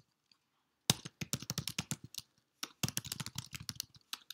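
Computer keyboard typing: a quick run of keystrokes starting about a second in, a brief pause, then another run near the end.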